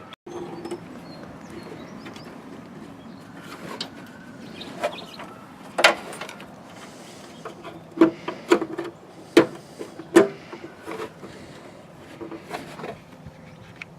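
Irregular sharp plastic clicks and knocks from a Ford F-150 headlight bulb assembly being handled, as the bulb's locking ring is turned back on and the wiring connector is plugged back in. The loudest knocks come in a cluster around the middle.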